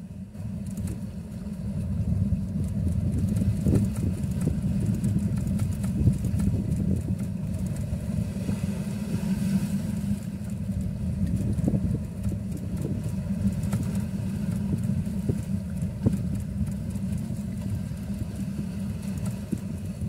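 A boat's engine running as a steady low rumble, with wind buffeting the microphone.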